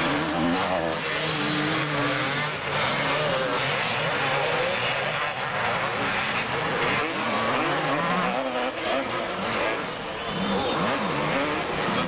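Several 250cc two-stroke motocross bikes racing, their engines revving up and down and overlapping as riders go through jumps and turns.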